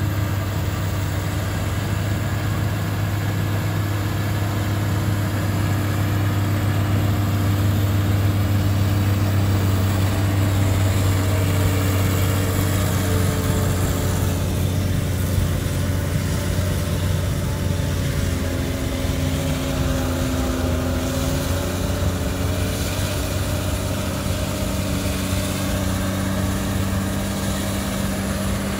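Caterpillar 966 wheel loader with a front-mounted snowblower at work: a steady, heavy diesel engine drone with a strong low hum, its pitch shifting a little midway.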